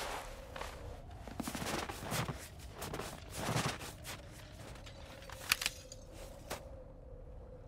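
Sound effects from an animated series' soundtrack: a steady faint hum with irregular soft knocks and rustles, and a couple of sharp clicks around five and six and a half seconds in.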